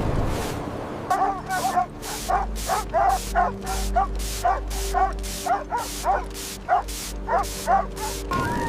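Dogs yipping and barking in a quick run of short, falling yelps, two to three a second, starting about a second in and stopping near the end, over a low steady drone.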